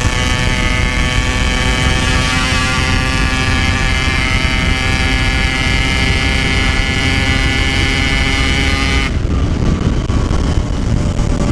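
Yamaha RX-King's two-stroke single running at a steady high pitch through its Packing Power standard-style exhaust while riding. The throttle comes off about nine seconds in and the note drops away, leaving low road and wind rumble.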